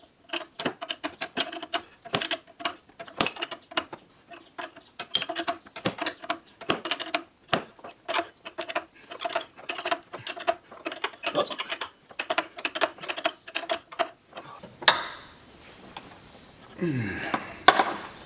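Ratchet clicking in quick, uneven runs as the installer tool is turned to press the harmonic balancer hub onto the crankshaft of a Cadillac 368 V8. The clicking stops about 15 seconds in, and a short falling tone follows near the end.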